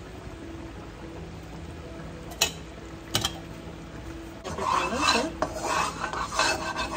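A spatula scraping and swirling cooking oil around a nonstick wok: a rough, irregular rubbing that starts about four and a half seconds in and keeps going. Two sharp clicks come shortly before it.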